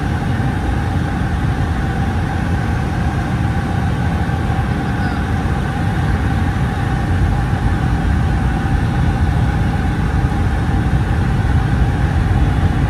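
Steady drone inside the main cabin of a Boeing 757-200: engine and airflow noise, deep and even, with a few constant hums above it.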